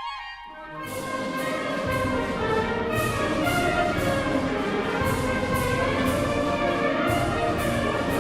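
A wind band plays together at full strength with brass prominent, entering about a second in after a quieter woodwind line, with cymbal strokes about twice a second.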